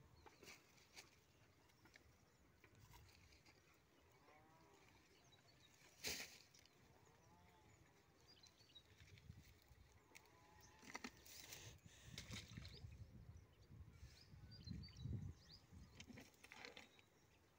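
Near silence with a few faint bleats of livestock, a sharp click about six seconds in, and low rumbling handling noise in the second half.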